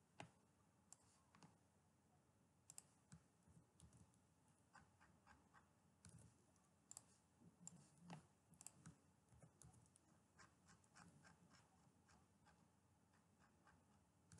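Near silence, with faint, scattered clicks of a computer mouse and keyboard, a few bunched together about halfway through.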